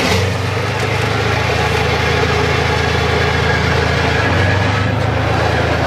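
T-55 tank's V12 diesel engine running steadily with a deep, constant hum.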